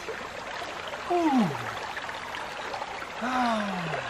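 A man's voice letting out two long wordless cries that fall in pitch, a reaction to the cold water he has just plunged into, over the steady rush of a creek.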